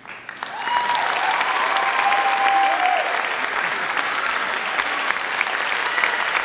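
Audience applauding. It breaks out suddenly, builds within about a second and then holds steady, with a few pitched cheers heard in the first few seconds.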